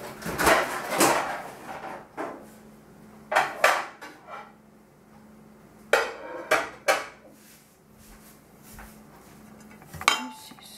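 Kitchen pans and dishes clattering and knocking against each other in a run of short bursts, the loudest about half a second to a second in and again around six to seven seconds in, with a last clatter near the end.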